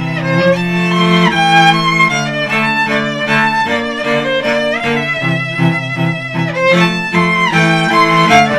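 Violin and cello duo playing a pop medley: the violin carries a bowed melody of held and sliding notes over the cello's sustained low notes.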